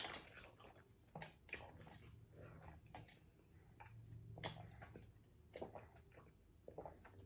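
Near silence, with a few faint mouth clicks and soft sips through a drinking straw.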